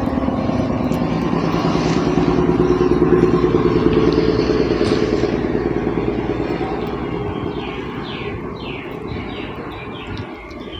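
A passing engine, swelling to its loudest about three to four seconds in and then fading. Near the end, about half a dozen quick falling chirps.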